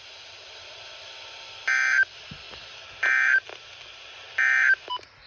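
NOAA Weather Radio SAME end-of-message code: three short, identical buzzy digital data bursts about a second and a half apart, marking the end of the tornado warning alert. Faint radio hiss runs between the bursts.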